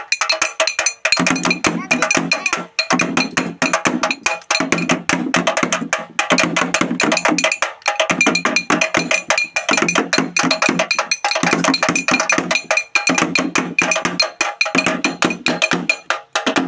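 Music with fast, dense percussion like wooden clicks over steady pitched tones, and a low part that drops in and out every second or so.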